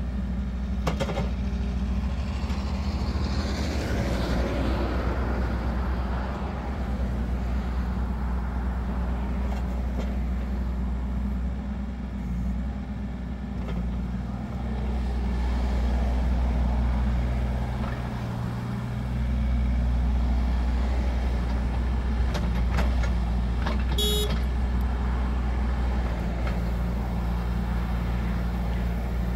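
Wacker Neuson EZ38 mini excavator's 1.6-litre three-cylinder diesel running, rising and falling in load as the hydraulic boom and bucket are worked. A brief high beep sounds a few seconds before the end.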